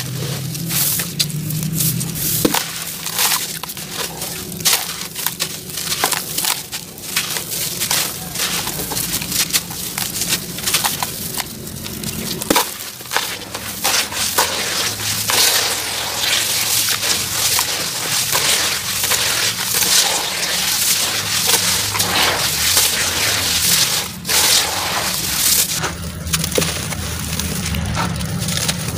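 Wet sand-cement lumps being squeezed and crumbled by hand in a basin of water: a dense run of gritty crunching and crackling. The sound changes abruptly a few times as one crumbling take gives way to another.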